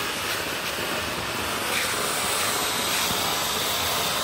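Large ground fountain firework (flower pot) spraying a tall column of sparks, giving a steady rushing hiss.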